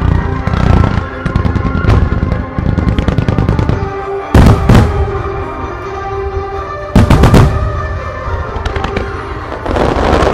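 Fireworks in a rapid-fire starmine display: a constant run of launch thuds and shell bursts, with two very loud booms about four and a half and seven seconds in, and crackling near the end. Music plays throughout.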